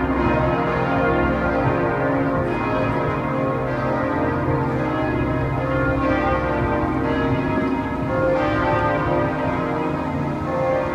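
Church bells of the Kaiser Wilhelm Memorial Church pealing: several bells ringing together in a continuous, overlapping peal with no pauses.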